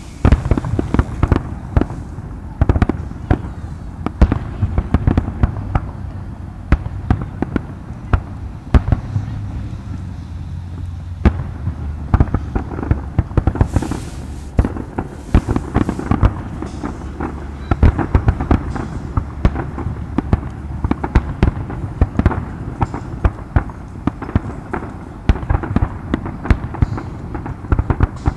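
Fireworks display: aerial shells bursting in a rapid, continuous barrage of bangs and crackles over a low rumble.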